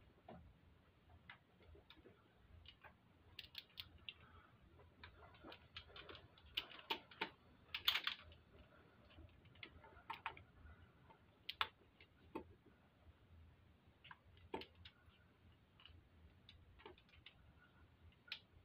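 Faint, irregular metal clicks from a hand wrench and socket tightening the tappet block bolts on a motorcycle V-twin engine, the loudest about eight seconds in.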